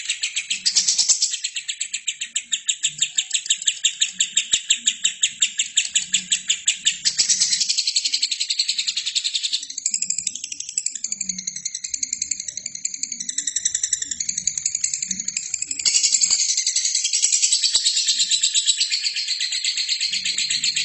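Albino lovebird singing a long, chattering song: a fast run of repeated chirps, about five a second, turning after several seconds into a varied warble with sliding notes, then dense chirping again.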